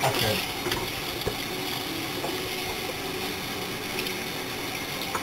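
Kitchen tap running in a steady stream into the sink, with soft wet rubbing as a soaked plush toy is scrubbed under the water.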